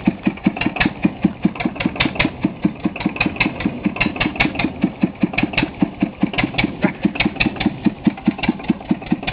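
Single-cylinder stationary engine of a homemade tractor chugging steadily while driving, with an even beat of about five firing strokes a second.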